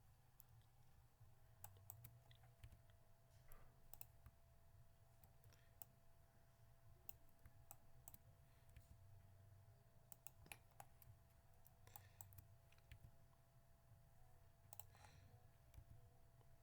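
Faint, irregular clicks of a computer mouse and keys at the desk, a few every couple of seconds, over a faint low hum.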